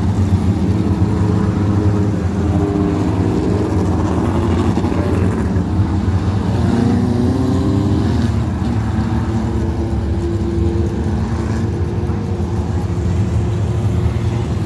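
Ministock race cars running laps on a dirt oval, a steady drone of several engines revving. Partway through, one car's engine rises and then falls in pitch as it passes close by.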